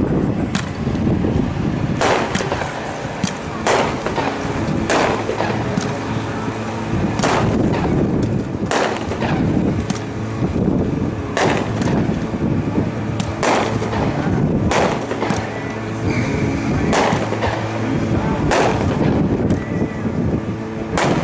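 A 200-gram multi-shot fireworks cake (World Class Chickaboo) firing shot after shot, a sharp bang about every one to one and a half seconds. Wind rumbles on the microphone underneath.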